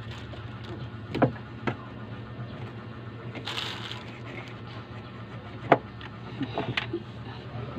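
A baby's hands slapping and patting a refrigerator door: several sharp knocks, the loudest about two-thirds of the way through, and a short rustle of a cleaning cloth rubbed on the door, over a steady low hum.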